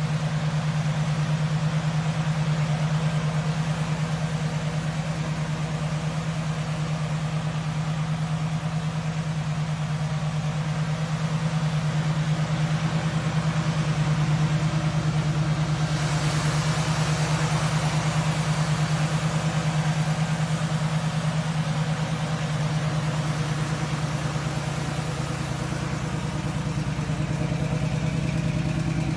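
A 1942 Plymouth coupe's swapped-in 340 Plymouth Duster V8 idling steadily with an even low hum. A rushing hiss joins over it for several seconds around the middle.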